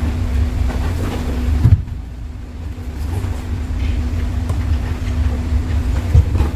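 Steady low rumble with a constant hum underneath, broken by a sharp thump about two seconds in and another near the end.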